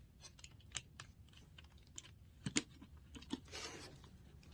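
Faint, scattered clicks and taps of a cordless stick vacuum's parts and packaging being handled, with a brief rustle about three and a half seconds in.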